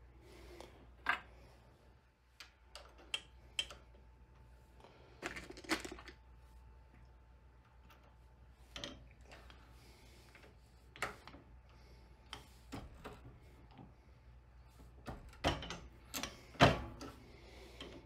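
Light clicks and knocks of brass cartridges and a reloading press being handled: loaded .308 rounds tapped and set into a plastic loading block and the press worked, in a string of separate short clicks with the loudest near the end.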